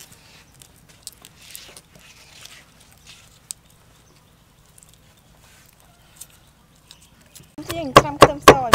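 Faint crinkling and small clicks of papery garlic skins being peeled off cloves by hand. Near the end, a cleaver starts chopping garlic on a wooden board with loud, evenly spaced strikes, about four a second.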